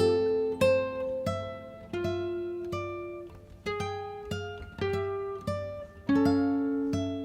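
Background music of a plucked guitar playing a slow melody, one note or chord after another, each ringing out and fading.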